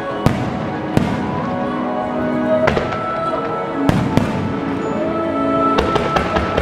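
Aerial firework shells bursting with sharp bangs at irregular intervals, then a quick run of several near the end, over music.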